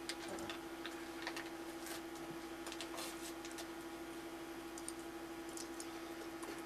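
Irregular clicks of a computer keyboard being tapped at a studio workstation, over a steady electrical hum.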